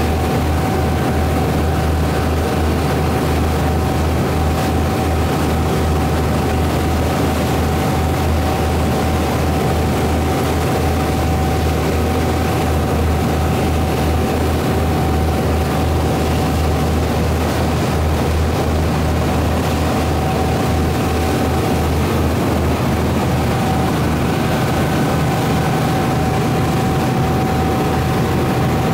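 Glass-bottom tour boat under way, its engines droning steadily under the rush of the propeller wash churning behind the stern. A thin, steady higher hum runs through it.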